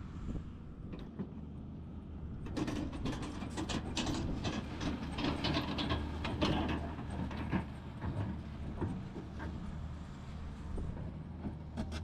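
Excavator's diesel engine running steadily, with irregular metallic clanking and rattling that starts about two and a half seconds in, from the machine's tracks and bucket at work.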